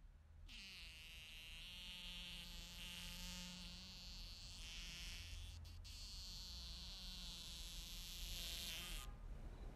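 A fly buzzing close up. It starts about half a second in and cuts off suddenly near the end, over a faint low hum.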